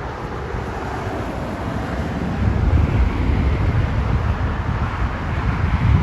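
Jet roar of a Boeing 737-800's CFM56-7B engines at takeoff power, heard as a steady rushing noise. Wind buffets the microphone with gusty low rumbles, the strongest near the middle and again near the end.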